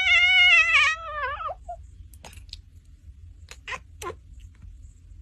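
A cat's long, wavering meow that falls in pitch and stops about a second and a half in, followed by a few faint short sounds.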